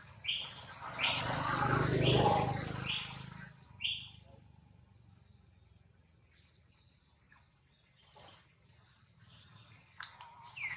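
Outdoor ambience: a short high chirp repeats about every 0.7 s for the first few seconds, over a rustling noise, and then gives way to a faint steady insect hum. A brief falling squeak comes near the end.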